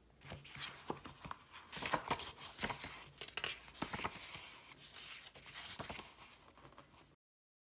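Pages of a paperback book being flipped through by hand: a quick run of paper rustles and sharp page flicks that cuts off suddenly near the end.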